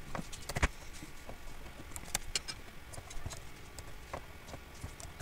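Computer keyboard and mouse clicks: a scatter of irregular clicks and taps as a label is typed into a dialog box, with one louder click just over half a second in.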